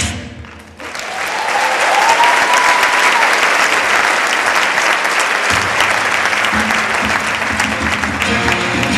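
Audience applauding after the music breaks off, with one person whistling, rising then held, about a second or two in. The band comes back in under the clapping about halfway through.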